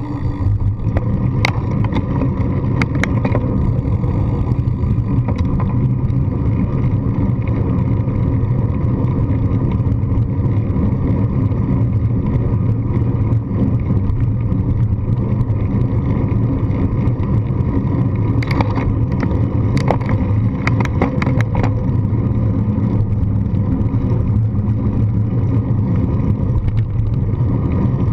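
Steady wind buffeting and road rumble picked up by a GoPro on a bicycle's handlebar mount while riding, with a few sharp clicks and rattles from bumps a second or two in and a cluster of them about two-thirds of the way through.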